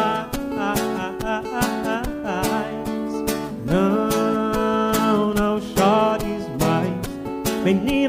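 Background music: a song with strummed acoustic guitar, in a passage without lyrics.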